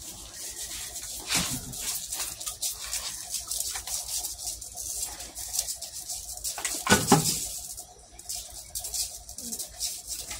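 A big black and white tegu lizard struggling on a concrete floor while it is held: a run of scratches and scuffs from its claws and body on the concrete, with one louder scuffle about seven seconds in.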